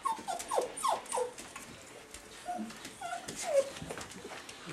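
Wire fox terrier puppies whimpering and yipping: short high whines that fall in pitch, a quick cluster at the start and a few more about halfway through.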